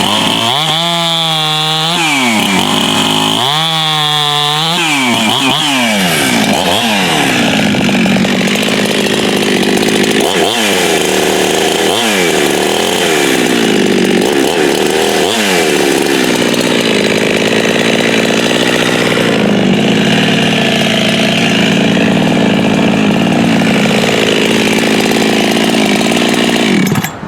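Ported FarmerTec 372 two-stroke chainsaw with a 272 piston, revving and cutting wood. The engine pitch sweeps up and down twice, dips sharply several times as the chain bites and recovers, then holds steady at high revs under load before cutting off suddenly near the end.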